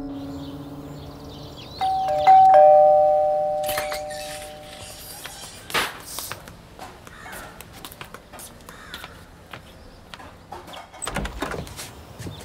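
Two-tone doorbell chime ringing once about two seconds in: a higher note then a lower one, fading away over a couple of seconds. A few faint knocks and thuds follow later.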